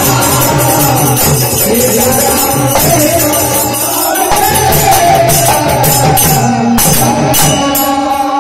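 Live Hindu devotional kirtan music: a harmonium and a dholak drum keep a steady rhythm under jingling hand percussion, with male voices singing into microphones.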